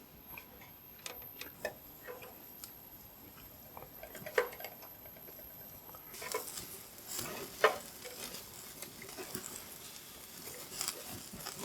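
Scattered light taps and clinks of cooking utensils and dishes being handled, with a faint hiss joining about six seconds in.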